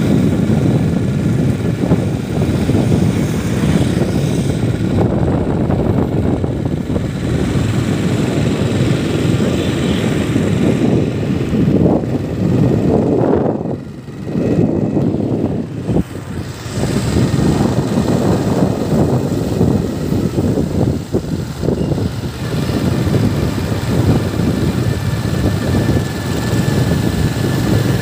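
Motorbike ride: steady engine drone mixed with wind rumbling on the microphone. The noise dips briefly twice about halfway through.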